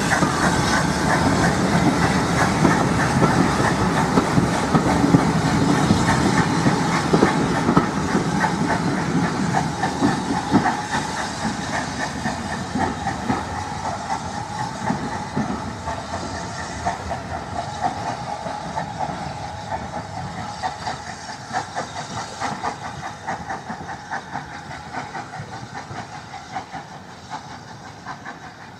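Steam-hauled train of carriages running past, wheels clicking over the rail joints, with a steady hiss of steam. The sound fades steadily as the train draws away.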